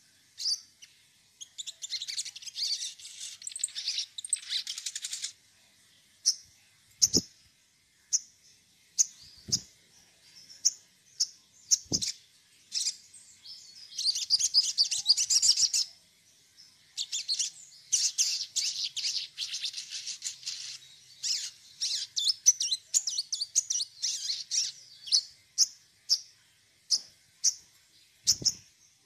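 Caged sogon (a long-billed spiderhunter) singing a fast, high, chattering song: dense runs of trills broken up by strings of short sharp chirps. A few soft knocks from the cage sound now and then.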